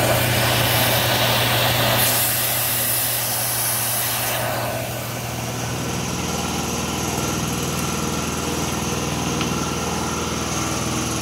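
Milling machine with an end mill cutting into a plywood strip: a steady motor hum under a bright cutting noise for the first four seconds or so. The cutting noise then stops and the spindle runs on with the motor hum alone.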